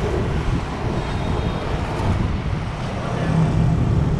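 Motorbike and car traffic on a city street: a steady rumble that swells about three seconds in.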